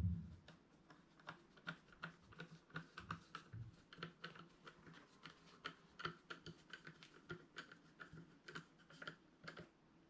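Faint, irregular clicking of a hand tool, several clicks a second, as the bolts holding a steering wheel onto its column are driven back in.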